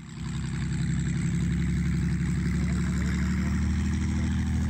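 Verner Scarlett 9S nine-cylinder radial aero engine running steadily at idle on a test stand, a fast even pulse of firing strokes, while its fuel mixer is being tested.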